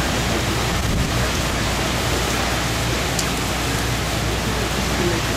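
Hurricane wind and heavy driving rain, a steady unbroken noise.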